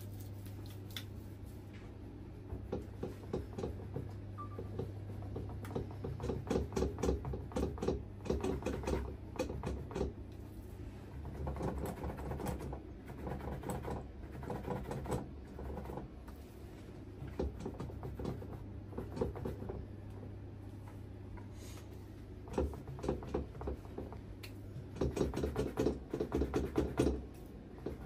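Fingers rustling and scrunching through short, tightly curled punch-permed hair on a mannequin head as it is styled, in irregular bursts of soft crackling rustles over a steady low hum.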